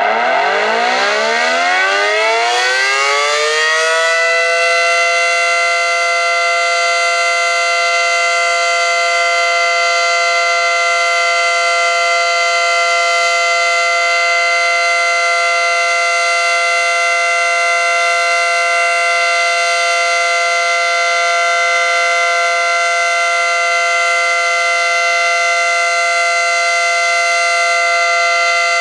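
ACA Screamer dual-tone (9/12-port) rotating warning siren winding up, rising in pitch over the first four seconds or so, then holding a steady two-note chord. This is its Alert signal, sounded in a tornado siren test.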